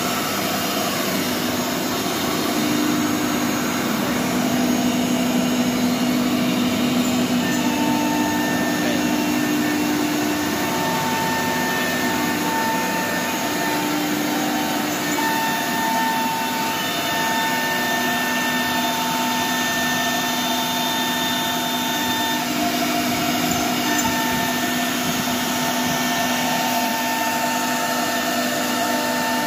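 Single-head CNC router running and cutting grooves into a board: a steady machine rush with a whine that comes and goes as the bit cuts.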